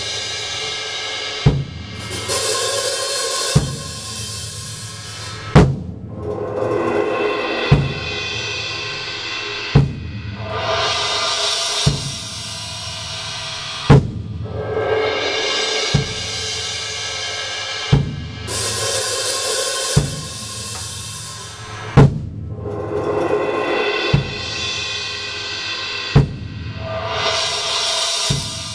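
Sound Percussion acoustic drum kit, on its cheap stock drumheads, with Wuhan cymbals, played in a steady beat. A loud accented hit lands about every two seconds, with cymbal crashes ringing on between them.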